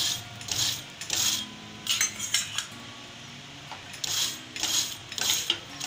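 A metal utensil scraping in short strokes across a paratha on an iron tawa as oil is spread over it, about two strokes a second. The strokes pause for a moment midway.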